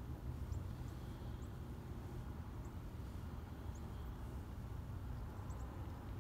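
Outdoor background: a steady low rumble, with faint, very short high chirps scattered every second or so.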